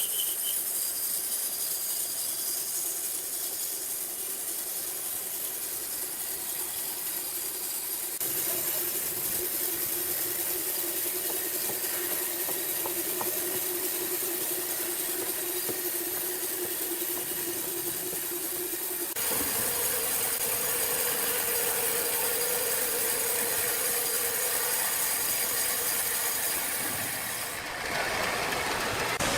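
Sawmill machinery running: a steady machine hum over a loud hiss, changing abruptly about 8, 19 and 28 seconds in as one machine's sound gives way to another's.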